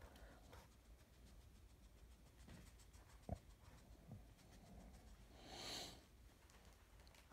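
Near silence with faint handling noise: a single soft click about three seconds in and a short breathy hiss a little before six seconds.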